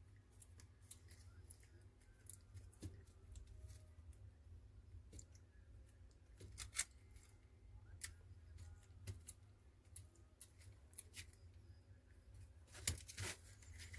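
Near silence with faint, scattered small clicks and taps of a smartphone's parts being handled during a repair, a sharper click about seven seconds in and a few more near the end.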